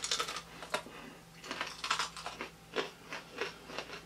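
Raw serrano peppers being bitten and chewed: irregular crunchy clicks and crackles, a few a second.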